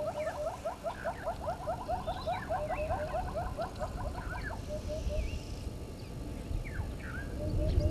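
An animal calling in a fast, even series of short rising notes, about six a second, which breaks off about halfway through into a few slower notes. A few higher chirps from other birds come now and then.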